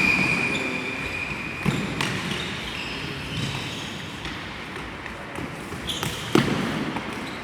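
Match ambience without commentary: a steady high whistle-like tone for about the first second and a half, then scattered thuds, the loudest about six seconds in, over a background of crowd noise.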